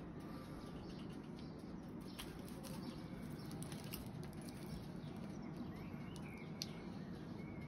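Metal serving spoons scraping and tapping against a metal tray and china plate as pilaf rice and its crisp crust are scooped, giving a few light clicks over a steady low background hum.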